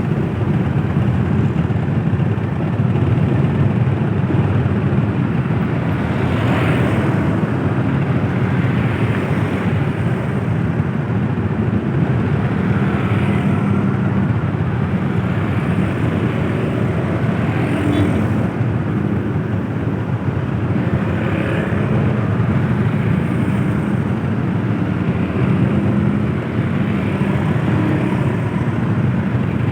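Steady drone of a vehicle on the move: engine and road noise, with faint tones that drift up and down now and then.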